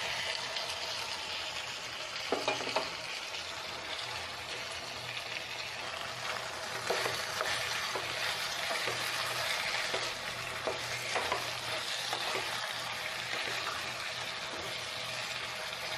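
Fried chicken pieces sizzling in a hot pan of onion, capsicum and sauce on high flame as a wooden spatula stirs them in: a steady sizzle with a few brief scrapes and knocks of the spatula against the pan.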